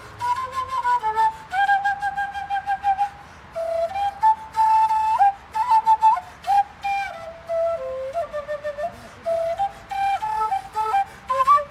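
Wooden end-blown flute playing a melody of held and stepping notes.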